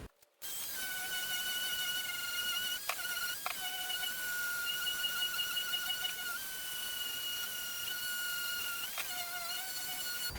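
A power tool's electric motor running with a steady high whine, its pitch shifting slightly a few times.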